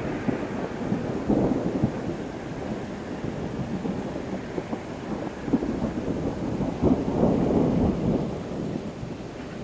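Thunder rumbling and rolling in several swells, the strongest about seven to eight seconds in, then easing off.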